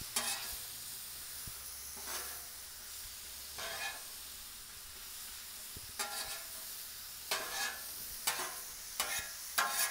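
Potatoes, mushrooms and bacon sizzling on a Blackstone steel flat-top griddle, with about nine scrapes of metal spatulas on the griddle plate as the hash is pushed and turned, coming more often in the second half.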